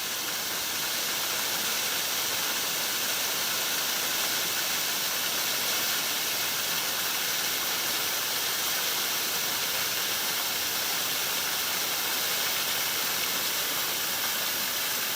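A small waterfall makes a steady rush of water, a light flow over rock that the speaker says needs more rain to be really flowing.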